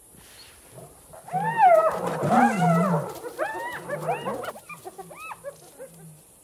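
Spotted hyenas calling: a run of yelping calls that rise and fall in pitch, loudest in the first couple of seconds, then shorter and fainter calls trailing off.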